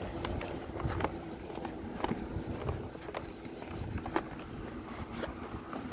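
Footsteps of someone walking on a paved sidewalk, regular taps about once a second over a steady low outdoor rumble.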